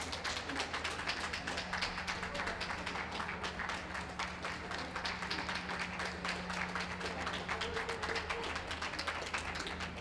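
Audience clapping: dense, irregular claps that build just before and fade out just after, over a steady low hum.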